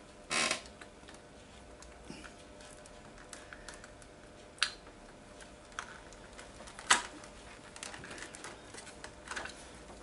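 Hard plastic clicks and scrapes as the plastic cover of a Dyson DC07 vacuum cleaner is pressed and worked onto the body; the cover is a tight fit. A brief scrape near the start, then a few separate sharp clicks, the loudest about seven seconds in.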